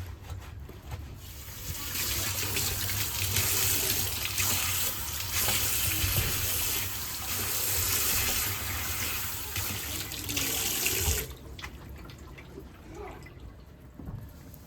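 Kitchen tap running into a sink, turned on about a second and a half in and shut off suddenly about three-quarters of the way through.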